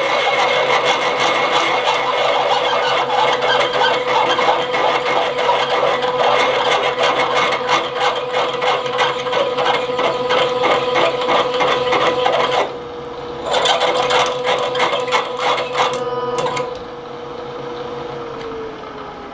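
Milling machine spindle driving an old, battered twist drill into a broken M16 stud, with a rapid grinding clatter as the drill pulls out the thread, over a steady spindle whine. The cutting breaks off briefly about two-thirds through and stops near the end, and the spindle whine then falls in pitch as the machine runs down.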